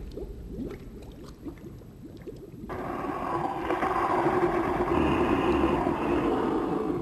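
Film sound effect of water churning and gurgling. About three seconds in, a long, loud drawn-out cry joins it: a monster's roar as the creature goes under the water.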